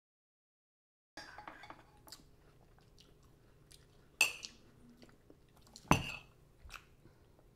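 Total silence for about a second, then quiet breakfast-table sounds: light clinks of a spoon against a cereal bowl and chewing, with two louder knocks near the middle.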